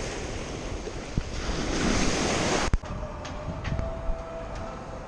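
Small waves breaking and washing up a pebble beach, the surf swelling about two seconds in. It cuts off suddenly with a click a little under three seconds in, leaving a quieter steady background with a faint hum.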